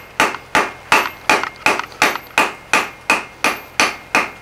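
Hand hammer striking red-hot steel bar on an anvil in a steady rhythm, about three blows a second, each with a short ring. The smith is drawing out a taper, working the bar from square to octagon.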